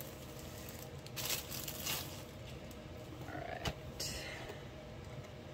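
Faint handling of a cardboard diamond-painting kit box being opened: a few soft rustles and one sharp tap or click about three and a half seconds in, over a low steady room hum.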